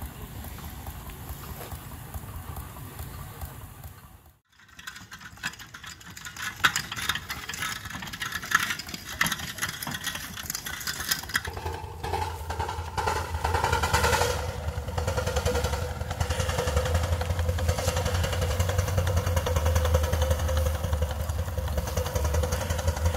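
1/3-scale Case 65 steam traction engine under steam. It chuffs and clanks as it gets moving, then runs steadily under load towing a small wagon, with a continuous low hum from the engine.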